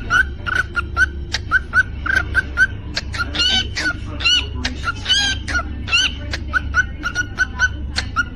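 Cockatiel chirping and whistling: a steady run of short chirps about three a second, with a few louder whistled notes in the middle, over a steady low hum.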